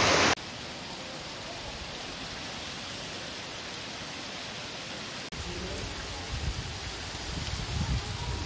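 Heavy rain falling, a steady hiss. A little after halfway an edit brings in louder rain with an uneven low rumble of wind on the microphone.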